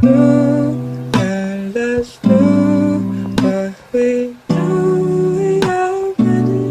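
Music: a slow lo-fi remix with plucked and strummed guitar chords and sharp percussive hits about once a second, with little deep bass.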